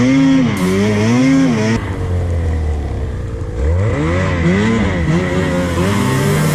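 Snowmobile engine revving in two surges, its pitch rising and falling as the throttle is worked, dropping to a steadier, lower note for a couple of seconds between them.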